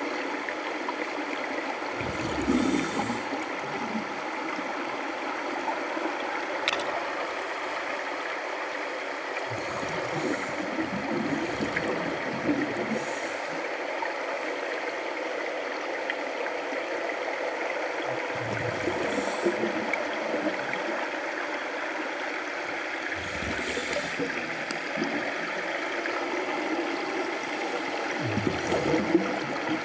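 Scuba breathing heard underwater: a steady hiss of water with bursts of bubbling from the divers' regulator exhaust every several seconds.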